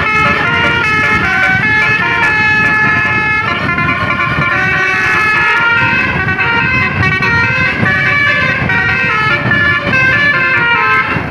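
Bus 'telolet basuri' musical horn playing a tune of quick stepped notes, several pitches sounding together, loud, over a low rumble of engine and road noise.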